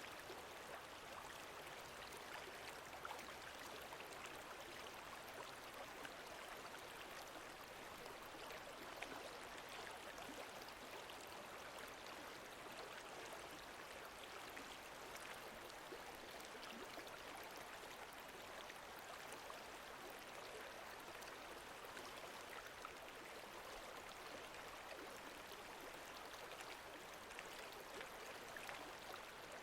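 Faint, steady sound of lake water moving gently, with many small ticks throughout.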